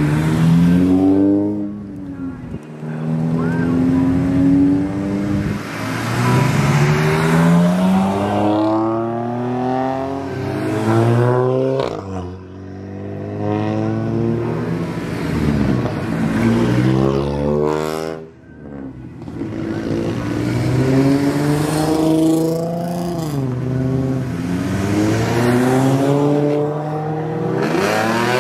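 Several lowered custom cars driving slowly past in turn, their engines and exhausts revving, the pitch rising and falling as each one pulls away.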